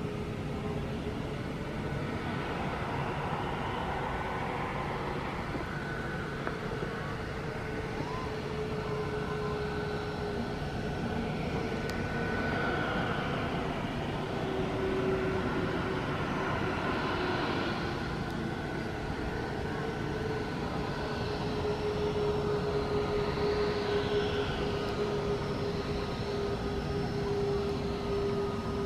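Jet airliner engines running, a steady rumble with a whining tone that wavers slightly in pitch and swells a little in the middle and near the end.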